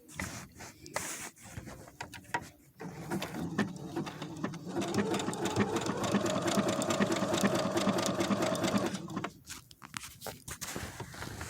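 Brother SQ9285 sewing machine running a dense embroidery stitch in one steady run of about six seconds, with scattered clicks before and after it as the stitching stops and starts.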